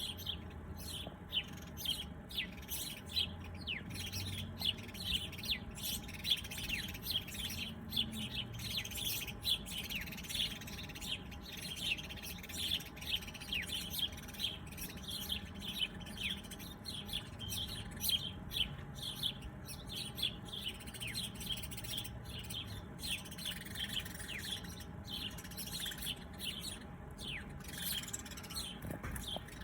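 Many small birds chirping continuously, a dense chorus of short, quick, downward-sweeping chirps.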